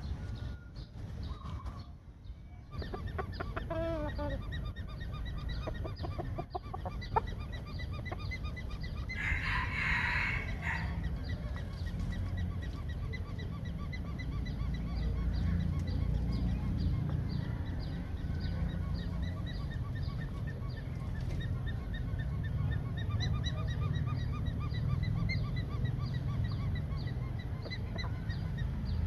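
Farmyard birds calling: a falling call about four seconds in, a brief loud harsh call about ten seconds in, then many short repeated calls, over a steady low rumble.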